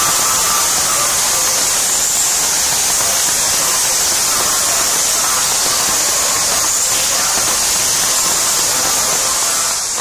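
Steady, loud rushing hiss of water flowing through a cave.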